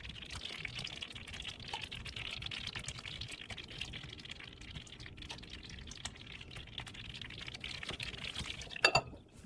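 Liquid sound: a steady watery hiss sprinkled with many small crackles, like liquid pouring or simmering in a pot. It drops away near the end.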